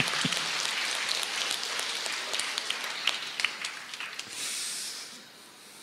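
Audience applauding, a dense patter of many claps that dies away about five seconds in.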